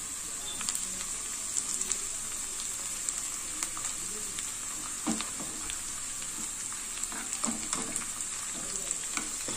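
Chopped onion and curry leaves frying in hot oil in a kadai on low heat, a steady sizzle with scattered crackles, as a tempering (tadka) being stirred with a steel spoon.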